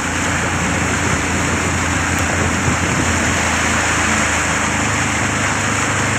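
A vehicle's engine running steadily under a continuous rushing hiss of water, as it drives through a flooded street.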